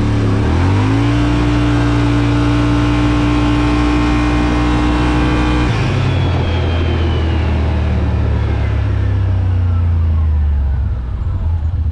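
Yamaha Wolverine RMAX 1000's parallel-twin engine at full throttle in an acceleration run. It revs up quickly, holds one steady high pitch for several seconds as the CVT keeps engine speed constant, then falls gradually in pitch as the throttle comes off.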